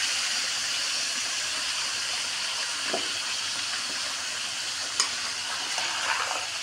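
Raw beef heart and kidney pieces sizzling in hot oil in a metal kadhai, freshly added on top of fried onions: a steady hiss that slowly eases. There is a single sharp knock about five seconds in.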